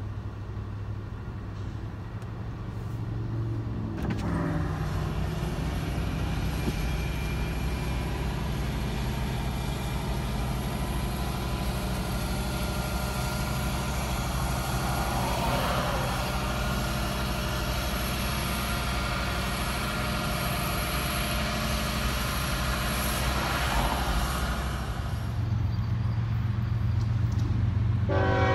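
Steady rumble of a Norfolk Southern freight train of tank cars and hoppers rolling past, mixed with vehicles going by on the road, heard from inside a parked car. Right at the very end a locomotive horn starts to blow.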